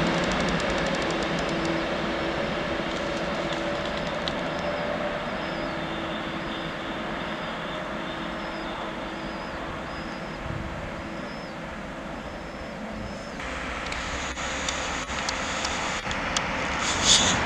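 Electric passenger train with an ÖBB class 1116 Taurus locomotive rolling away, its running noise and steady hum slowly fading. After a sudden change about two-thirds of the way in, the rolling noise of an approaching freight train behind a Siemens Vectron locomotive grows, with scattered clicks and a sharp clack near the end.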